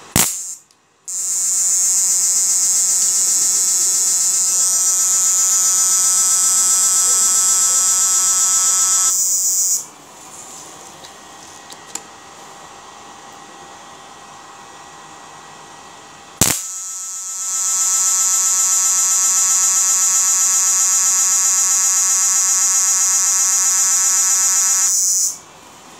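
A 12 V IGBT electro-fishing inverter discharging across its output leads in an electric arc: a loud, high-pitched electrical buzz. It runs for about eight seconds, falls to a low hum, then after a sharp click it comes back for another eight seconds or so.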